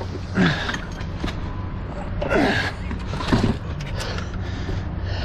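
Men giving three short strained grunts while lifting and carrying a heavy electric paper cutter, with a few light knocks near the end over a steady low hum.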